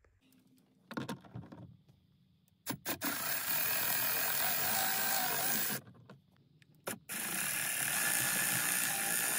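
Milwaukee cordless ratchet spinning a socket on an extension to back out the two screws at the top of a Ford F150 gauge cluster: two runs of about three seconds each, with a pause between them and a few faint handling knocks before the first.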